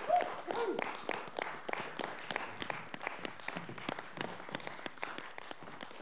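Audience applauding with many quick claps, with a couple of short cheering voices in the first second.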